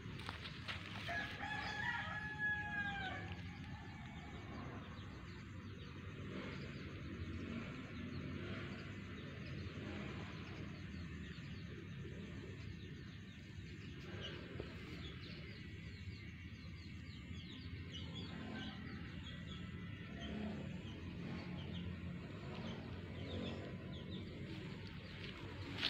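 A rooster crows once, about two seconds in, over steady low background noise.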